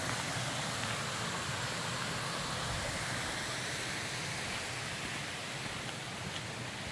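Steady rush of a rocky stream, water running over and between boulders.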